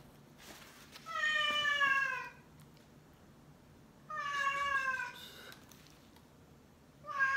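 A domestic cat meowing three times: each meow lasts about a second and falls slightly in pitch, and they come about three seconds apart, the last one near the end.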